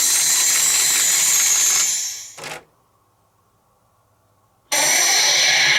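Pachinko machine running: a steady metallic clatter of steel balls with faint high electronic tones. The sound fades out about two and a half seconds in, goes near silent for about two seconds, then cuts back in suddenly.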